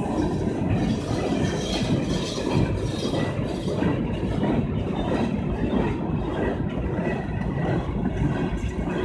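Freight train of coal hopper cars rolling past close by: a steady rumble of steel wheels on the rails, with scattered light clicks.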